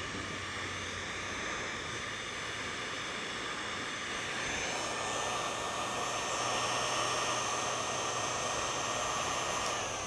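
Electric heat gun blowing hot air onto PET bottle strips to shrink them tight, a steady fan-driven rush of air. About halfway through it turns a little louder and brighter, and near the end it cuts off with a click.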